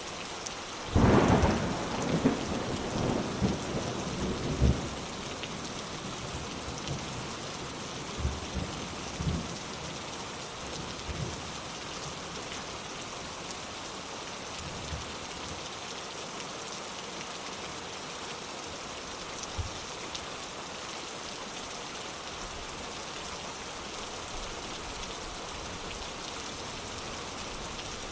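Steady rain falling, with a sudden thunderclap about a second in that rolls on for a few seconds, then fainter rumbles of thunder now and then.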